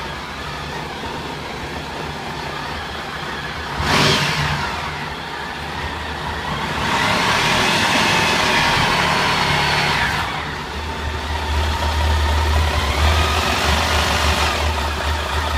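An engine running, with its pitch rising and falling as it is revved for a few seconds in the middle, and a heavy low drone near the end. A brief loud rush with falling pitch comes about four seconds in.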